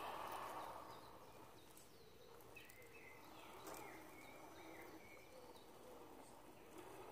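Faint woodland ambience with a few short bird chirps near the middle.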